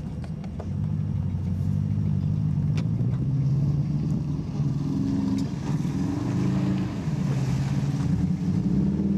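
Subaru Leone flat-four engine running under load while driving over rough dirt, heard from inside the cabin, its revs stepping up and down several times. A few short knocks and rattles come through over the bumps.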